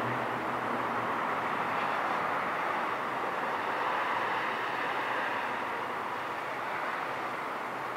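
Steady rushing background noise with no distinct events, and a low hum that dies away about a second in.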